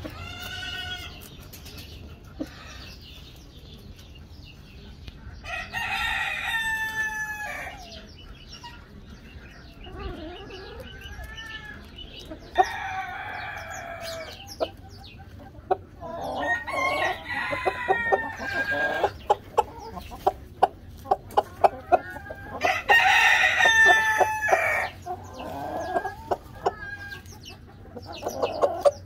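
Chickens clucking, with drawn-out calls every few seconds. From about halfway in, many sharp taps from beaks pecking at a head of lettuce.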